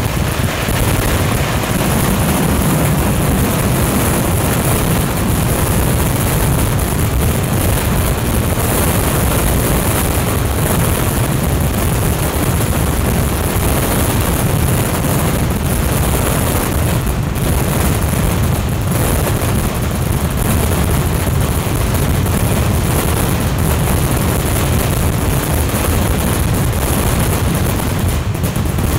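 A massed barrage of firecrackers and ground fireworks going off so fast that the bangs merge into one continuous roar.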